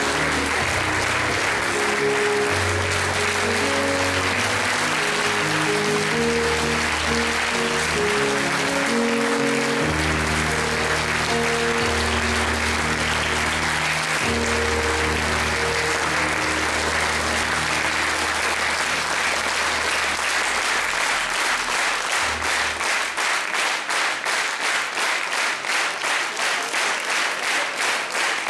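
Audience applause over instrumental music with a bass line. About twenty-three seconds in, the music ends and the applause turns into rhythmic clapping in unison, about two claps a second.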